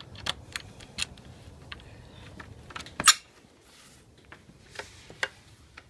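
Scattered clicks and knocks as a door is handled and passed through, with one sharp, loud click about three seconds in, after which the low background hum drops away.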